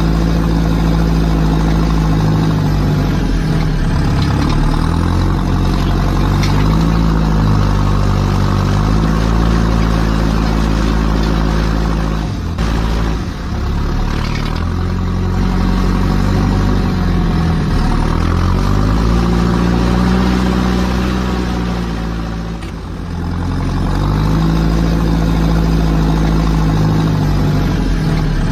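Heavy engine running, its pitch rising and falling in a cycle that repeats about every seven to eight seconds, with two brief dips in loudness.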